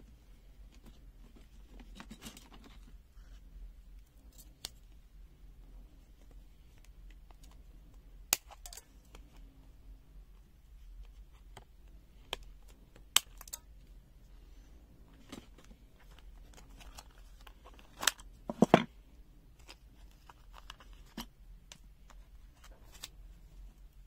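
Scissors cutting through a tool's cardboard-and-plastic retail card: scattered sharp snips and clicks with card rustling between them, the loudest cluster about three quarters of the way through.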